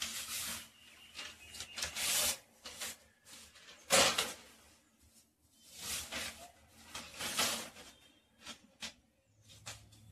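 Sheet of newspaper rustling and crinkling as it is spread out and smoothed by hand over a ledge, in a string of irregular swishes with a louder, sharper crackle about four seconds in.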